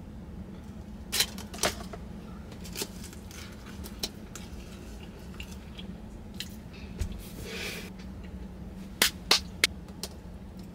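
Close-miked eating sounds of a person biting and chewing a large burrito covered in queso: a scatter of sharp, wet mouth smacks, clustered near the start and in three quick smacks near the end, with a brief crackle about seven seconds in, over a faint steady hum.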